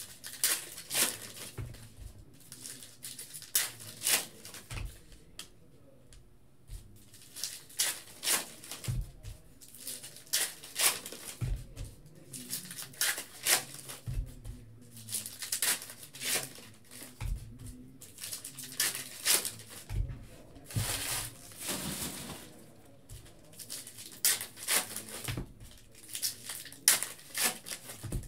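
Foil wrappers of Panini Legacy football card packs crinkling and tearing as the packs are handled and opened, in quick irregular rustles. Light knocks come every few seconds as packs and cards are set down on the table.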